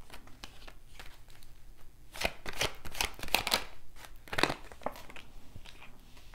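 Tarot deck being shuffled by hand: quick papery card flicks and slaps, in a dense flurry from about two seconds in and a shorter one just after four seconds.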